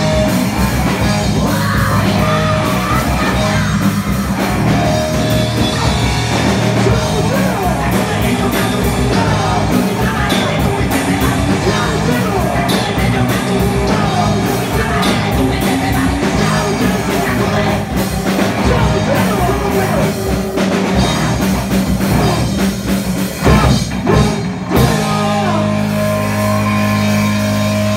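Live rock band of distorted electric guitars, electric bass and drum kit playing loud, driving hard rock. A few accented hits come about 24 seconds in, then the band holds a sustained chord that rings on to the end.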